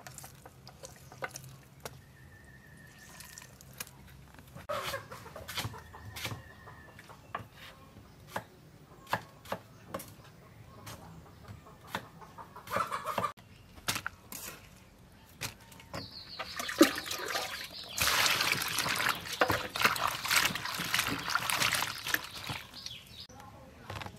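Chickens clucking in the background, with scattered sharp taps of a cleaver on a wooden cutting board. About eighteen seconds in comes a louder rush of noise lasting a few seconds.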